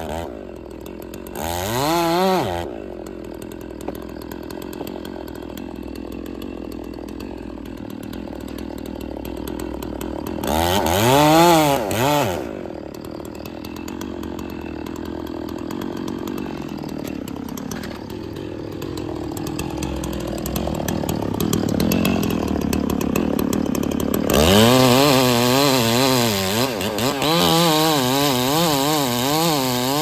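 Stihl chainsaw dropping to idle, blipped briefly to high revs twice (about 2 s and 11 s in), then opened to full throttle at about 24 s in and cutting into a black walnut trunk, its pitch wavering under load.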